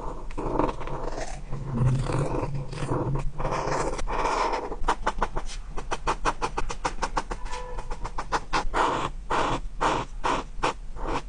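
Coloring on paper: a drawing tool scratching back and forth in strokes. Longer strokes at first, then a fast run of short strokes at about five a second in the middle, then slower strokes again.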